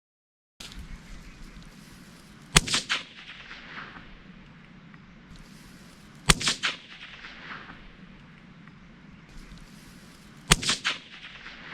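Three .22 LR gunshots about four seconds apart, each a sharp crack followed by quick echoes that fade within a second.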